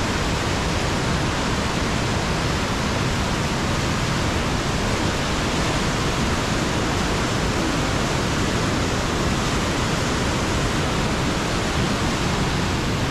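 Fast, churning river rushing below a plank suspension bridge: a steady, even rush of water with no breaks.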